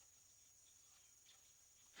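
Near silence: faint room tone with a couple of very faint small ticks.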